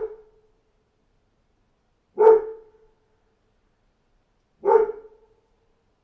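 Dog barking: single barks spaced about two and a half seconds apart, each with a short trailing echo.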